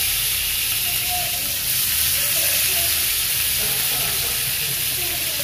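Silver pomfret frying in olive oil in a pan: a steady sizzle.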